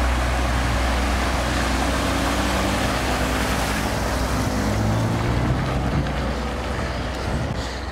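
A vehicle in motion: a steady low engine rumble under an even rushing of road and wind noise, the engine's pitch drifting a little around the middle.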